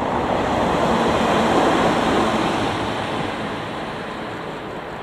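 FruiTea Fukushima, a two-car electric train, passing close by on the rails and running away. The rumble of its wheels on the track swells to its loudest about a second and a half in, then fades steadily as the train recedes.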